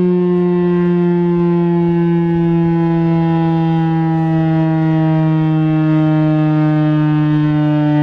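STH-10 tornado siren sounding a steady, low wail with many overtones, its pitch sinking slowly.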